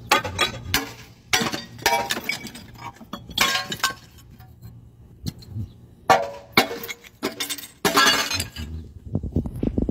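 Ceramic toilet being smashed with a hammer: a series of irregular sharp blows, the porcelain cracking and breaking apart, with shards clinking as they fall.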